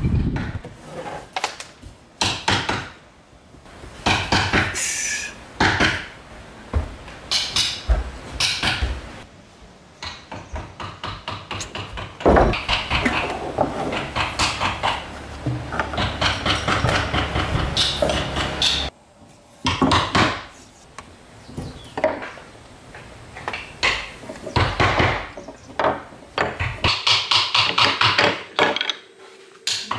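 Wooden knocks and handling clatter at a carver's workbench: a heavy wooden worktable being shifted and set in the middle, then steel carving chisels with wooden handles being laid out, clinking against one another on the wooden tabletop near the end.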